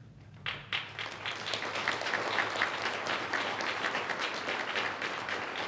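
Audience applauding at the end of a speech: a dense patter of many hands clapping that breaks out about half a second in and keeps going steadily.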